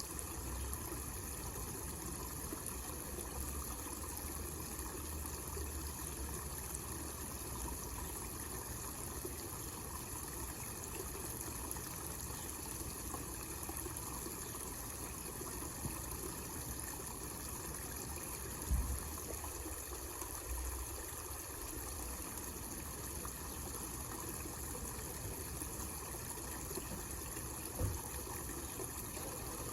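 Water splashing and trickling steadily down a homemade miniature waterfall into a small pond. Two brief low thumps come through, one past the middle and one near the end.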